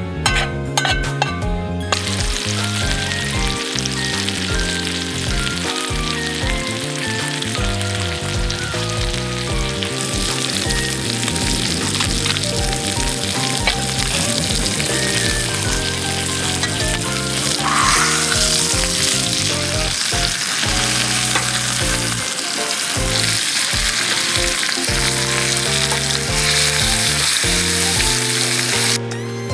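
Food sizzling and frying in a hot pan, a steady hiss that starts a couple of seconds in, gets louder partway through and stops shortly before the end. Background music with a steady bass line plays throughout.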